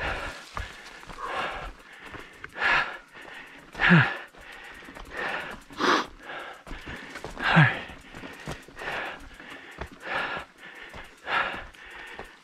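A person breathing hard and rhythmically from exertion on a climb, a loud breath about every second or so, with a few exhales voiced in a tone that falls in pitch.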